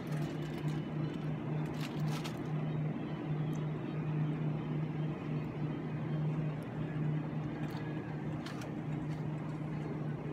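A steady low mechanical hum, with a few short light clicks.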